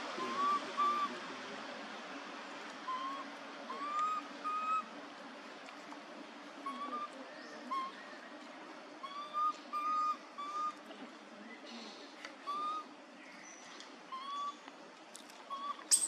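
Short whistle-like animal calls, each a quick rise and fall, repeated in twos and threes every second or two over a steady outdoor hiss. A sudden loud shriek comes right at the end.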